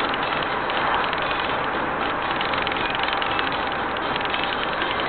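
Steady road and engine noise inside a moving car's cabin, picked up by a dashcam microphone.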